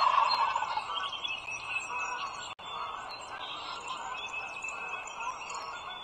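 A chorus of birds chirping and calling, many short whistled notes overlapping, loudest in the first second.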